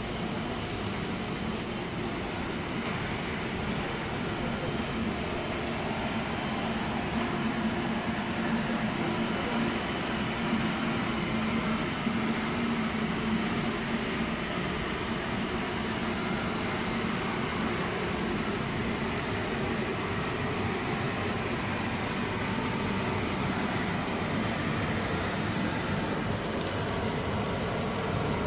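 Continuous charcoal carbonization furnace and its motors and blowers running steadily, a dense even machine noise with a thin high whine and a low hum.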